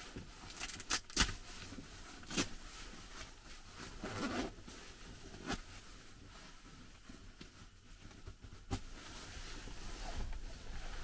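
A few sharp clicks and knocks, spread irregularly, with soft rustling over a steady hiss.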